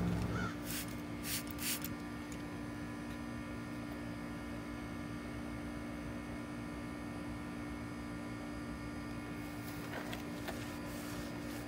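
Three quick squirts from a trigger spray bottle of bug remover about a second in, over a steady hum. Near the end there is faint rubbing of a microfiber towel wiping the bumper.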